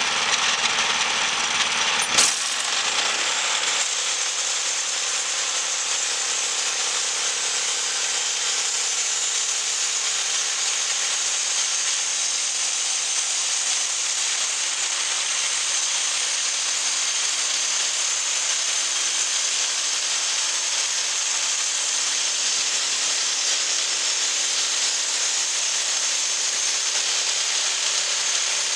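Portable pusher band sawmill running steadily, its band blade cutting a slab off a log, with one sharp knock about two seconds in.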